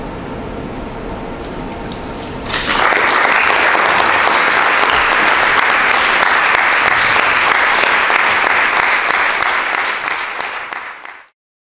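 Concert audience applauding: the clapping breaks out suddenly about two and a half seconds in, after a steady low hiss, and holds steady until it cuts off abruptly near the end.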